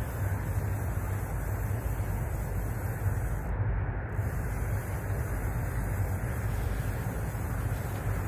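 Steady low rumble and wind noise on a small boat at sea, with no break or change.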